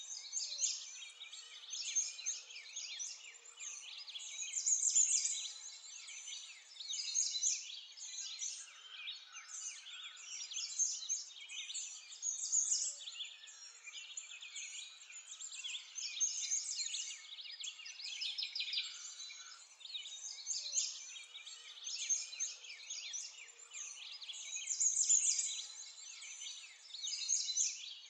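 A dense chorus of small birds chirping and twittering together, many quick high calls overlapping, the whole rising and falling in loudness every few seconds.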